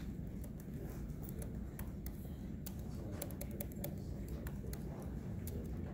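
Typing on a computer keyboard: irregular keystroke clicks that come thickest from about two seconds in, over a steady low hum.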